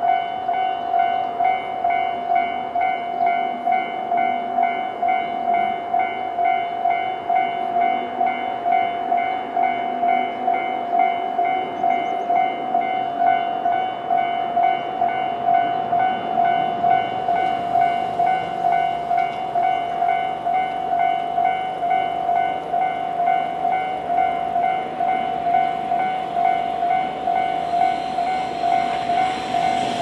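Japanese railway level-crossing warning bell: the standard electronic ding, repeating evenly and without a break. From about halfway through, the rumble of an approaching Tobu 20400-series electric train builds and grows loud as the train reaches the crossing at the end.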